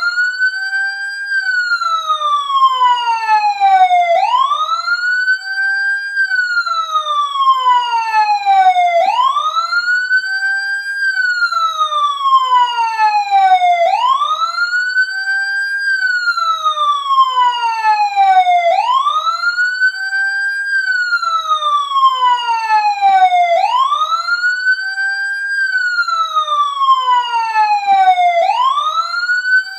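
Emergency siren sounding a slow wail: each cycle the pitch climbs quickly, holds a moment, then falls away over about three seconds, repeating roughly every five seconds.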